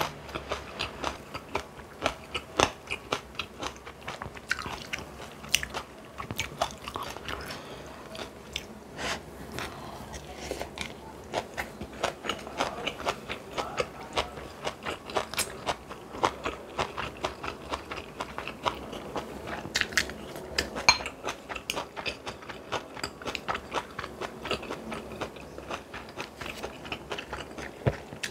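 A person chewing and crunching food in a dense, irregular run of sharp crunches and clicks.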